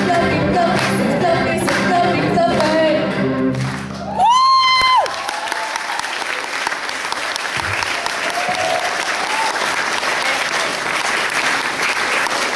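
A live pop-rock band with a singer and electric guitars plays the end of a song, stopping about four seconds in; a loud high held note of under a second follows, then audience applause that grows louder.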